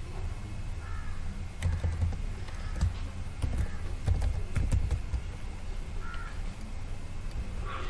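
Computer keyboard typing: irregular key clicks over a low hum, with a few faint short calls in the background.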